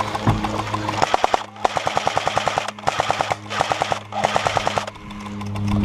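Airsoft electric gun firing full-auto, a rapid clatter of shots in about four bursts one after another.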